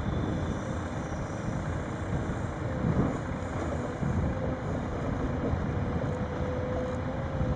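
Sennebogen 870 M material handler's diesel engine running as the wheeled machine travels across the yard, a steady low machine noise. A faint steady whine joins about three seconds in.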